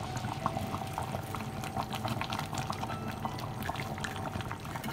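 Thick palm-oil soup bubbling in a pot on the stove, a steady run of small pops.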